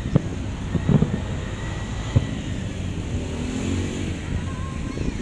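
Aerial fireworks going off: three sharp booms in the first two seconds or so, over a steady low rumble.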